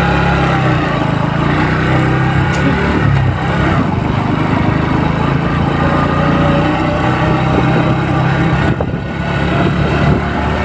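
Motorcycle engine running steadily while riding, heard from the rider's seat, easing off briefly about nine seconds in.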